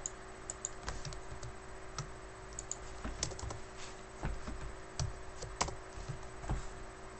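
Irregular keystrokes on a computer keyboard, sparse and uneven, over a faint steady hum.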